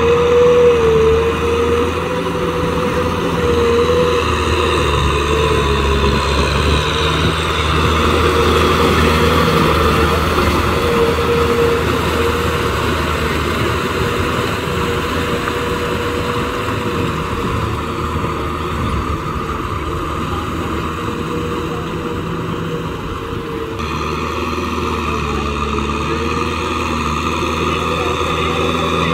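Kubota M6040 SU tractor's diesel engine running steadily under load as it pulls a rotary tiller through wet paddy mud, with slight rises and falls in engine note.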